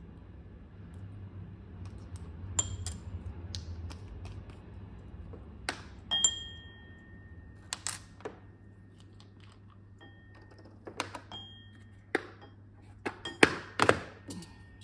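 Small jars, a bottle and their caps clinking and tapping as they are picked up, opened and set down on a clear sheet on the table. Several of the knocks ring briefly, and a quick cluster of louder knocks comes near the end, over a steady low hum.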